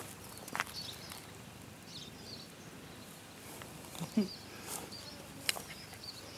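Faint outdoor ambience with a few light clicks and rustles and faint high chirps in the background.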